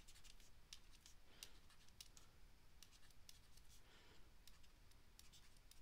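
Faint, scattered ticks and scratches of a stylus writing on a tablet, over near-silent room tone.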